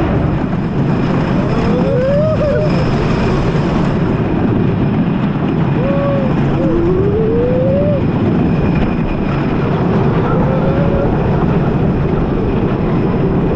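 Wooden roller coaster's Timberliner train running along its track, heard from a seat: a steady loud rush of wind and rumbling of the wheels on the wooden track, with a few short rising-and-falling squeals or whoops over it.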